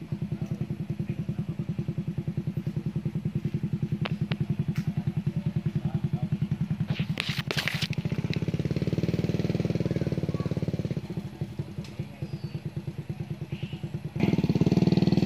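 A small engine running steadily with a rapid, even low putter. A brief rustle about seven seconds in.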